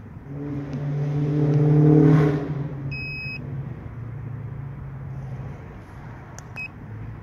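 A car goes by, its engine swelling to a peak about two seconds in and then fading away. About three seconds in, the Autel TS408 TPMS tool gives one clear half-second beep as it reads the tyre-pressure sensor. A short beep with key clicks follows near the end as its buttons are pressed.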